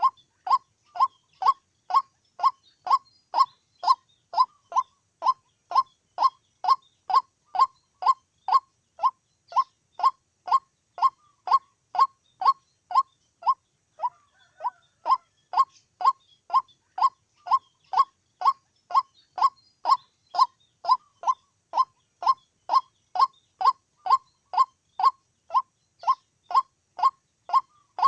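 White-breasted waterhen calling: one short note repeated over and over, about two a second and very evenly spaced, with a brief break about halfway through.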